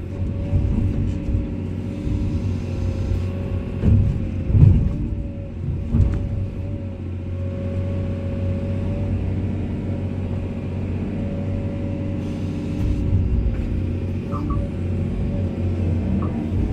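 Komatsu excavator's diesel engine running steadily under a constant whine, with a few heavy thuds about four to six seconds in.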